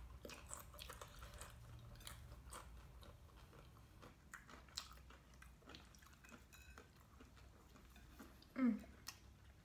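A person chewing and biting into a soft, tortilla-wrapped burrito, close to the microphone: faint scattered wet clicks and smacks of the mouth, with a short hum of voice near the end.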